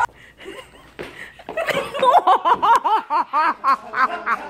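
A person laughing hard in a fast string of short "ha" bursts, about four a second, starting about one and a half seconds in.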